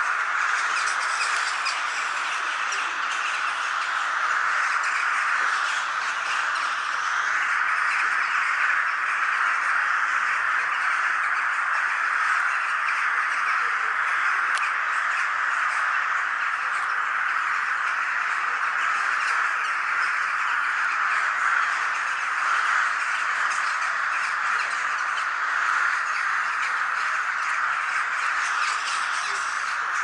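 A large flock of crows cawing together as they gather in the treetops, a dense, unbroken chorus of overlapping calls.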